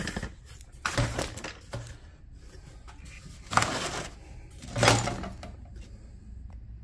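Three metallic knocks and clatters, about a second, three and a half and five seconds in, from handling a golf cart motor's armature and brush springs in its steel housing.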